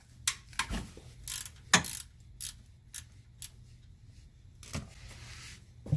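Ratchet wrench with a 13 mm socket clicking in short, uneven strokes as it loosens the oil drain plug, about ten sharp metal clicks spread over several seconds.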